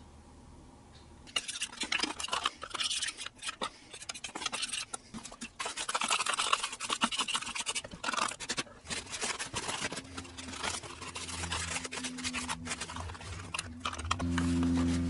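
A stiff hand brush scrubbing sawdust and chain-oil gunk off a chainsaw's plastic sprocket cover, a dense run of scratchy strokes starting about a second in. In the last few seconds a steady low hum comes in and grows louder.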